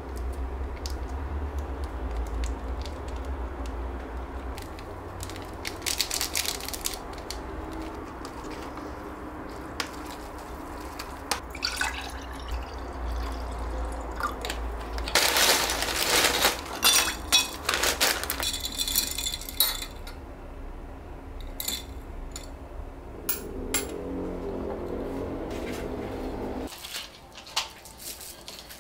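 Small kitchen-counter handling noises and clicks as sauce packets go into an instant noodle cup, then, about halfway through, liquid poured from a plastic bottle into a tall drinking glass for several seconds, with splashing and light clinks of glass.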